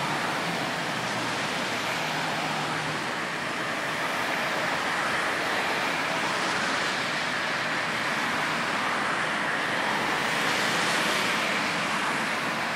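Steady motorway traffic noise, a hiss of tyres on the road that swells gently now and then as cars pass.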